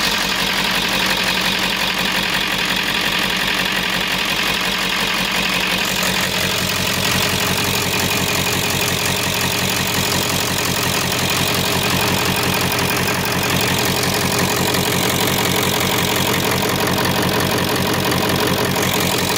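Ford 7.3 Powerstroke V8 turbodiesel idling with its valve covers off, the injectors and rocker gear exposed. It is firing on all eight cylinders now that the injector driver module has been replaced. The low rumble grows about six seconds in.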